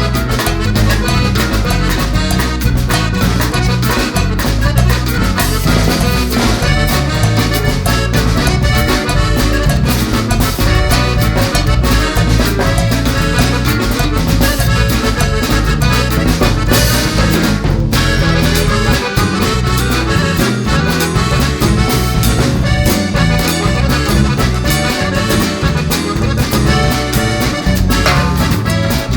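Upbeat Latin-style background music with accordion over a steady beat.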